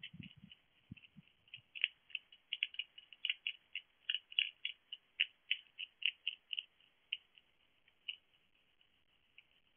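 Hedgehog chewing dry food from a bowl: a run of quick, irregular crunching clicks, several a second, that thins out in the last couple of seconds. A few low knocks come in the first second or so.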